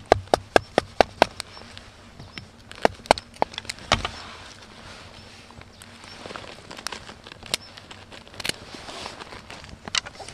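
Sharp wooden knocks of a fixed-blade knife chopping and striking a small branch: a quick run of about six strikes at the start, a few more around the middle, then scattered single knocks over a faint steady hiss.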